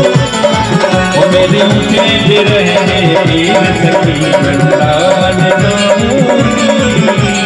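Live Hindu devotional bhajan music: an electronic keyboard playing a melody over a fast, steady percussion beat with a shaker-like rattle.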